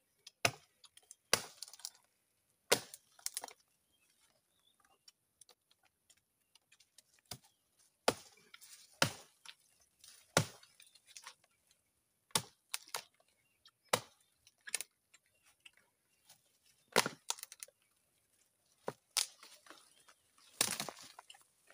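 Small hand axe chopping into a tree trunk: about a dozen sharp blows of metal biting into wood, irregularly spaced, with a pause of a few seconds after the first handful.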